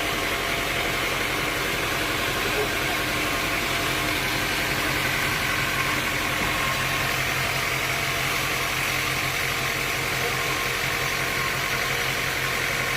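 Sawmill machinery running steadily, a constant engine-like hum under an even hiss.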